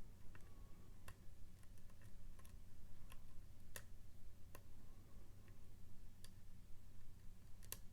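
Irregular small metallic ticks and clicks of a dimple lock pick tapping the pins inside a Mul-T-Lock MT5+ cylinder held under tension, one every half second or so, over a steady low hum.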